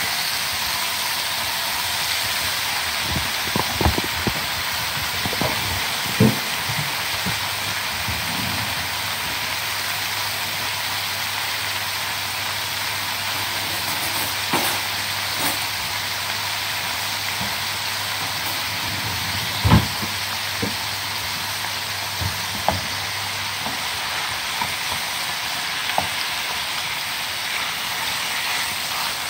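Marinated chicken pieces sizzling in hot oil in a nonstick frying pan: a steady frying hiss with a few sharp clicks and pops, the loudest about two-thirds of the way through.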